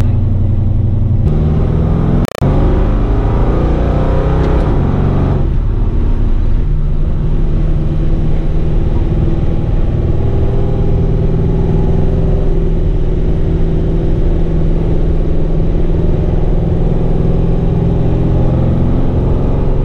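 Ford XC Falcon's 351 Cleveland V8 under way, rising in pitch as it accelerates for the first few seconds, then running steadily at cruise.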